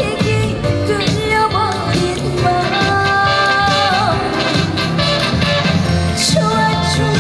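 Live band music with a voice singing long held, wavering notes over a steady beat.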